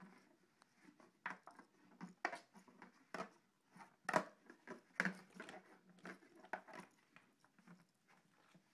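A cat batting a ball and scrabbling around inside a plastic jack-o'-lantern pail: irregular knocks, taps and scratches on the plastic. The loudest knocks come about four and five seconds in.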